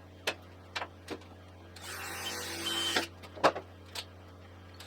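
Tools and metal parts being handled in a workshop: a series of sharp knocks and taps, with about a second of rushing, scraping noise in the middle.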